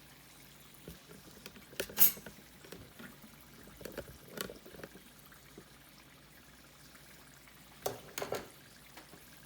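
Potatoes and chopped garlic frying in oil, a steady low sizzle. A few sharp clinks of a utensil against a pan come through it: the loudest about two seconds in, two more near the end.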